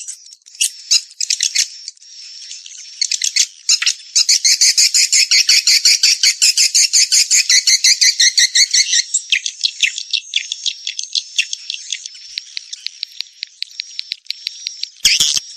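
Swiftlet calls: rapid, dense trains of high twittering chirps, many to the second, thinning to a sparser, higher ticking trill about two-thirds of the way through, then loud again at the end. This is a recorded swiftlet calling sound of the kind played to lure swiftlets into a nesting house.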